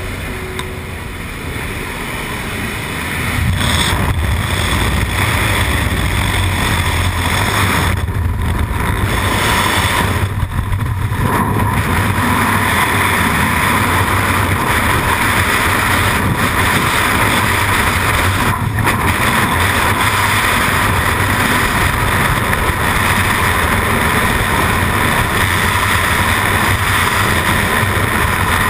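Freefall wind rushing over a skydiver's body-worn camera, a loud steady rush of air. It jumps up about three and a half seconds in, as the jumpers leave the aircraft, after a few seconds of quieter noise from the aircraft's open door.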